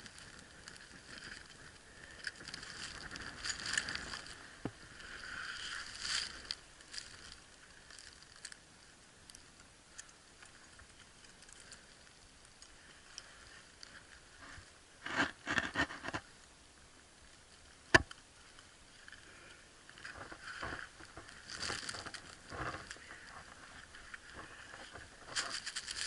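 Ice-climbing gear working on a frozen waterfall: ice tools and crampons scraping, chipping and crunching at hard, brittle ice that the axes won't bite into, with metal gear clinking. A cluster of quick strikes comes past the middle, followed shortly by one sharp click.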